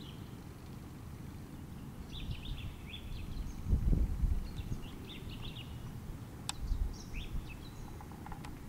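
Small birds chirping in short twittering bursts, three times, over a low rumbling noise that swells about four seconds in; a single sharp click near the end.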